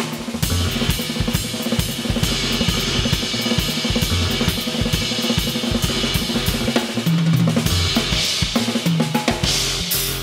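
Drum kit played live in a fast, dense groove: quick snare and bass-drum strokes under steady hi-hat and cymbals, the cymbal wash swelling near the end.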